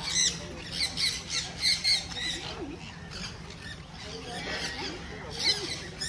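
A flock of sun conures giving short, shrill squawks, a quick run of them in the first two seconds and another burst near the end.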